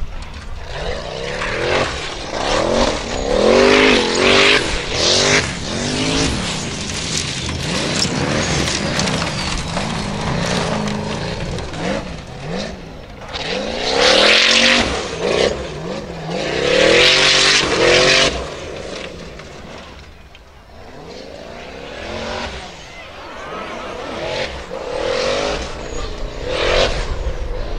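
Formula Offroad buggy's engine revving hard up and down again and again as it drives on loose sand, with several loud bursts of harsh noise as it powers up slopes. It drops quieter for a moment about two-thirds through, then revs up again.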